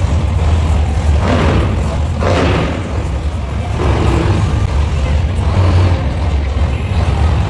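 Monster truck engines running loud with a heavy low drone, revving up briefly about three times.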